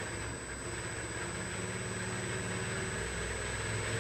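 Electric motor spinning a 3D-printed jet-pump impeller at high speed in the water: a steady whine and hum over a hiss of churning water, edging slightly louder. The impeller is unbalanced, at around 12,000 RPM.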